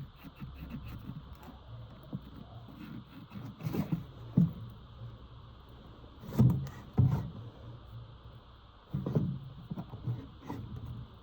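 Front-wheel-drive car's engine running with a low steady hum, broken by about six heavy clunks, some in close pairs. The clunks are the sign of a bad transmission mount letting the gearbox move and knock.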